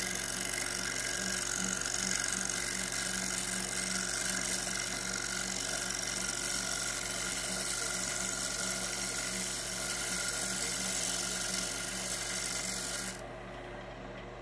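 Wood lathe running while a turning tool cuts a spinning staved wooden bowl, a steady hissing scrape over the lathe motor's hum. The cutting stops abruptly near the end, leaving the lathe humming on its own.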